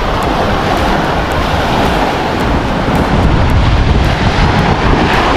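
Small sea waves breaking and washing up on a sandy beach, under heavy wind rumble buffeting the microphone.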